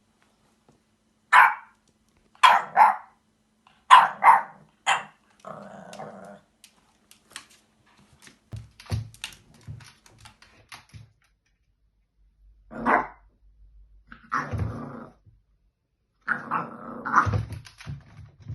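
French bulldog barking in short bursts and growling at a vacuum cleaner, with several quick barks in the first five seconds and more barks and growls near the end. Some soft low thumps come in the middle.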